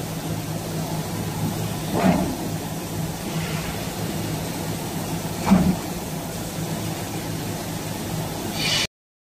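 Veneer clipper running with a steady machine hum, its knife cutting the veneer sheet with two short loud strokes about two and five and a half seconds in. The sound cuts off suddenly near the end.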